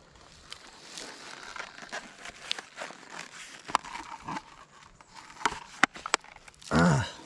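Small plastic finds box being handled and opened to stow a dug relic: crinkling of its lining with a run of sharp clicks and taps. A short loud low sound falls in pitch near the end.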